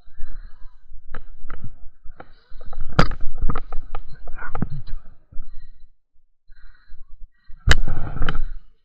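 Dry stems and brush snapping and crackling as they are broken and pushed through, over rustling and a low rumble, with two loud clusters of sharp cracks: one about three seconds in and one near the end.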